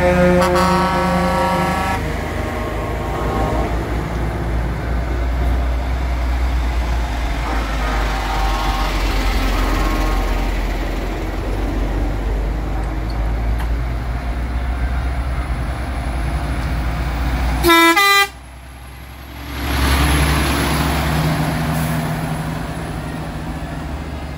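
Heavy trucks driving past at close range with engines running, a multi-tone air horn sounding as it begins and cutting off about two seconds in. A second short horn blast comes about eighteen seconds in, the sound drops away briefly, then a loud rush of noise builds as a truck passes close.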